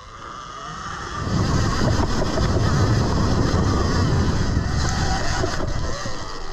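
Dirt bike engine revving hard as the bike pulls away and climbs a hill, getting much louder about a second in, with wind buffeting the microphone.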